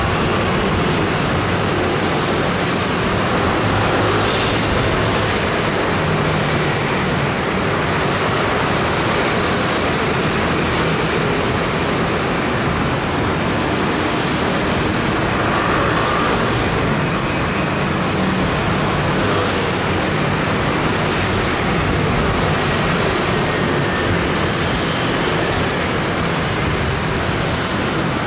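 Dense rush-hour traffic noise: a steady, unbroken wash of many motor scooter engines together with other road vehicles.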